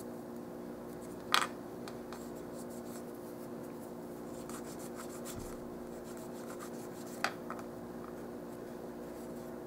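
Faint rubbing and dabbing of a cotton swab wiping thinned craft paint over a small painted paper part. A steady low hum runs underneath, and two short clicks come about a second and a half in and again about seven seconds in.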